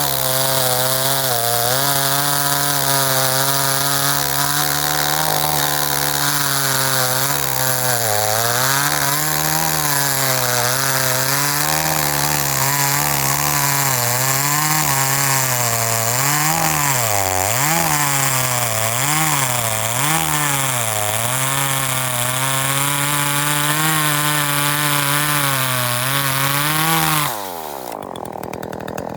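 39.6 cc two-stroke gasoline chainsaw running, its engine speed dipping and recovering over and over through the middle stretch. About 27 seconds in, the engine is shut off and winds down quickly.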